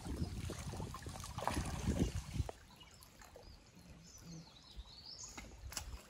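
Water splashing and sloshing for about two and a half seconds, then a sudden drop to quiet outdoor background with a few bird chirps and a single click near the end.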